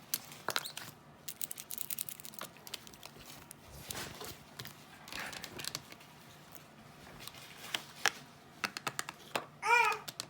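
Slime squished and poked with long fingernails, making a run of sticky clicks, pops and crackles. A brief high voice sounds near the end.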